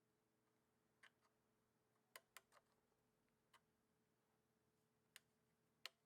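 Faint, sharp clicks, about six of them at uneven intervals, over a very quiet background hum.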